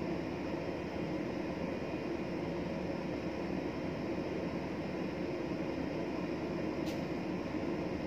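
Steady drone of a ship's machinery, with one short click about seven seconds in.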